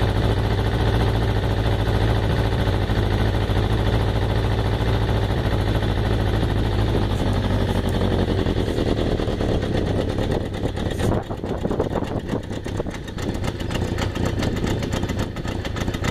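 1986 Suzuki GS550L's air-cooled inline-four idling steadily while warming up after a cold start. About eleven seconds in it turns slightly quieter and choppier, with the separate exhaust beats more distinct.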